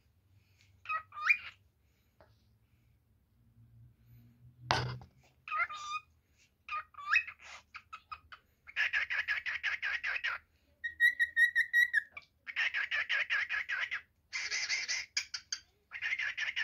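A pied male cockatiel singing. First come a few short, rising whistles, then from about halfway a rapid chattering warble in phrases about a second and a half long, with one steady held whistle between them. A single sharp knock sounds a little before five seconds in.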